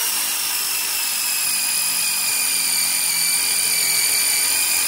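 DeWalt DCF887 cordless impact driver spinning a Hercules hex-shank drill bit at full speed into 304 stainless steel, lubricated with oil. It makes a steady high whine whose pitch sags slightly. The driver is not impacting, because there is not yet enough resistance to make the hammer mechanism engage.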